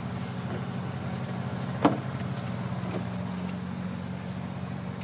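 An engine running steadily with a low hum, with one sharp knock about two seconds in.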